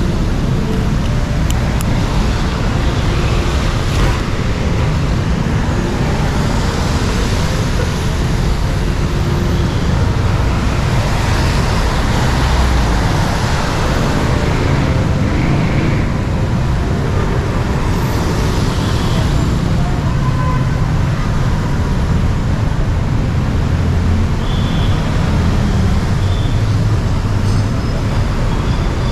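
Busy city road traffic: a steady low rumble of cars and buses going past, swelling as vehicles pass by several times.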